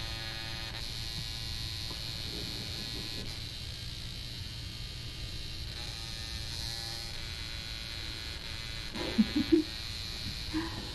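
Steady electrical buzz and hum. About nine seconds in, three short, loud pitched sounds break in over it.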